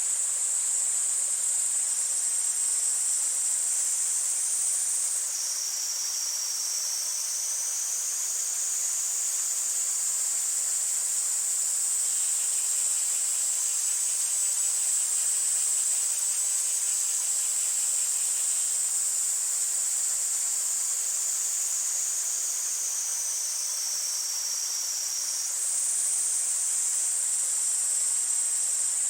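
Summer cicadas in a steady, high-pitched chorus whose pitch dips lower about five seconds in and rises back near the end, with a faint rush of a mountain stream underneath.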